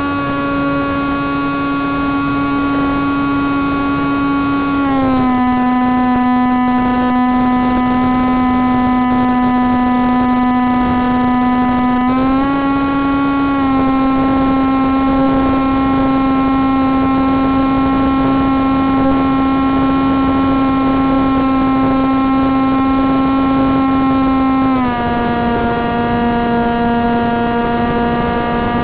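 Electric motor of a Wing Wing Z-84 flying wing spinning its propeller, run up for a propeller balance check, as a steady humming drone. Its pitch steps down a little about five seconds in, back up about twelve seconds in, and down again near the end as the throttle is changed.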